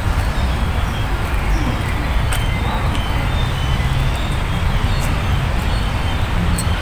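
Steady city-park ambience with a loud low rumble, a few faint bird chirps and some light clicks over it.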